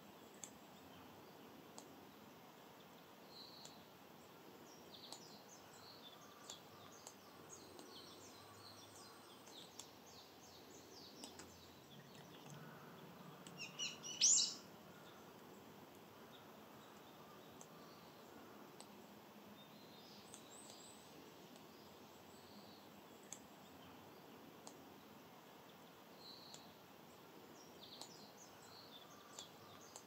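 Small birds chirping and singing over faint steady background noise, with one much louder, sharp call about halfway through.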